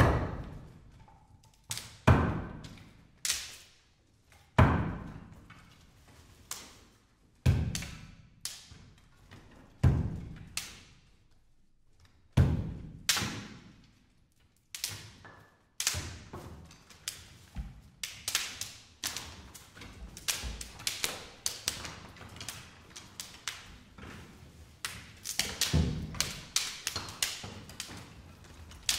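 Dry wooden sticks and branches handled as percussion. Single sharp wooden cracks come every second or two, each ringing out, then give way to a denser clatter of sticks knocking and dropping onto the stage floor.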